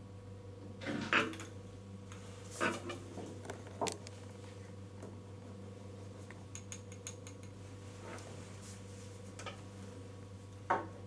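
Small knocks and rustles of objects being handled on a cluttered desk, with a quick run of light ticks about two-thirds of the way through, over a steady low electrical hum.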